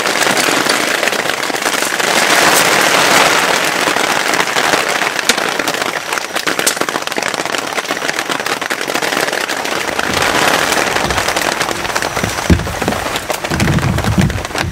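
Heavy rain falling, a loud, dense patter made of many fine crackling drops. Low knocks and rumbling come in near the end.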